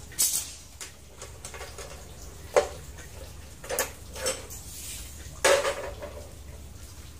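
About five separate metallic clanks and rattles of a steel rebar rod and metal hand tools being handled and knocked against a concrete floor and the chop saw's vise as the rod is set for cutting.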